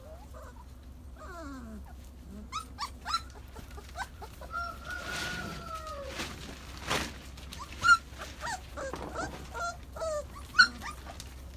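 Great Pyrenees puppies whining and yelping: a string of short, high, sliding yips, one longer falling whine about halfway through, and two sharp loud yelps near the end.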